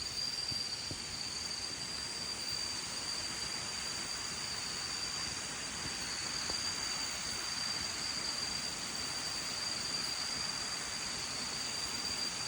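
Steady insect chorus of the tropical rainforest: one shrill, unbroken high-pitched tone with fainter high trilling above it, over a soft hiss.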